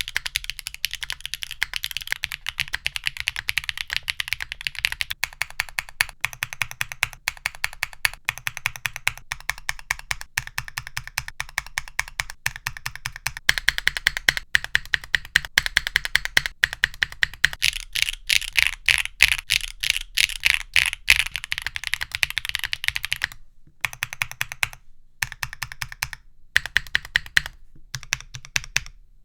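Typing on a Neo70 mechanical keyboard fitted with BSUN Udon long-pole switches, a deep clacky keystroke sound. The typing is fast and continuous, gets louder and denser about halfway through, then thins out to scattered single keystrokes near the end.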